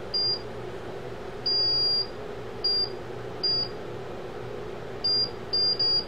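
High-pitched electronic beeps, about eight at irregular intervals, mostly short with one longer beep of about half a second, over a steady low hum.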